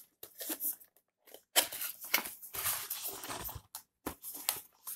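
Cardboard TV-box packaging being handled and opened: irregular rustling and scraping of cardboard as the box comes out of its sleeve and the lid is lifted, with a sharp knock about a second and a half in.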